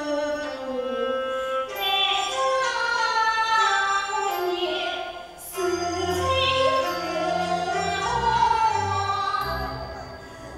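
Teochew opera aria with instrumental accompaniment, sung in long, drawn-out phrases that glide in pitch. A deep low accompaniment comes in after about five and a half seconds, and the music fades near the end.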